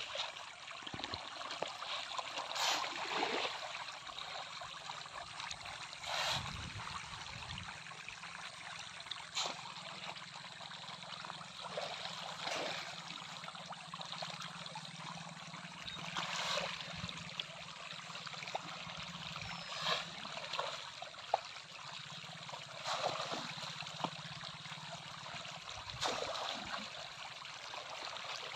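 A dense school of fish splashing and churning at the water surface, a steady sloshing with louder splashes every few seconds.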